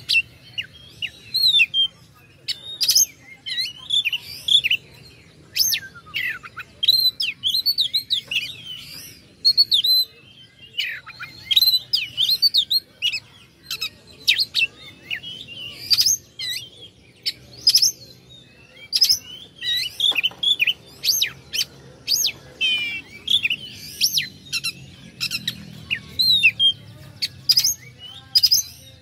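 Oriental magpie-robin (kacer) singing a fast, varied song of sharp whistles, trills and clicks in short phrases, almost without a break.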